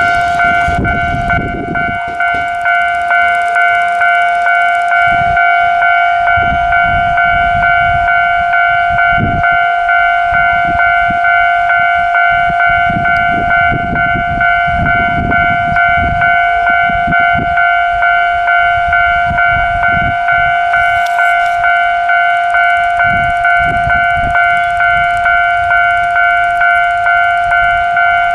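Electronic warning bell of a Japanese railway level crossing ringing over and over at an even pace, with an irregular low rumble underneath.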